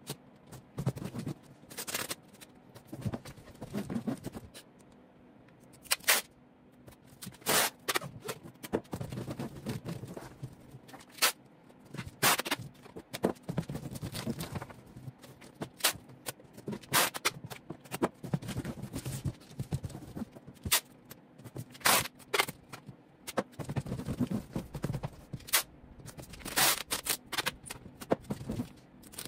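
A large cardboard shipping box being assembled and sealed with packing tape by hand: cardboard scraping and rustling, with many short, sharp sounds of tape being pulled and torn.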